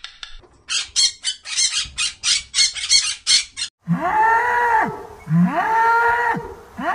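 A scarlet macaw squawking, about a dozen short calls in quick succession over three seconds. Then, from about four seconds in, a bovine lowing: three long moos in a row, each rising and then falling in pitch.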